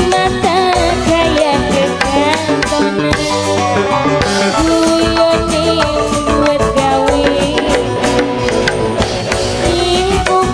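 Live burok dangdut music: a busy hand-drum beat under a sustained melody line that bends and wavers in pitch, playing without a break.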